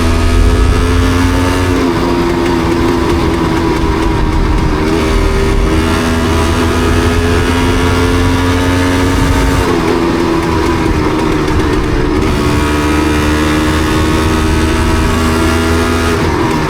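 Yamaha DT250MX single-cylinder two-stroke motorcycle engine running under way. Its note dips in pitch about two seconds in, again near ten seconds and just before the end, climbing slowly in between.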